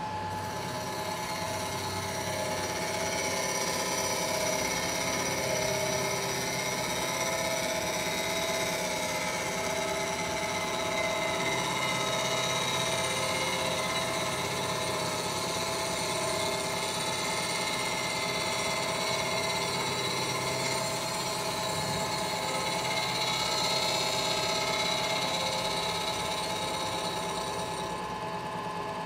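Milling machine taking a pass with a face mill across an aluminum water pump housing's mounting face. A steady run with several high steady tones, growing louder about a second in and easing off near the end as the cutter leaves the cut.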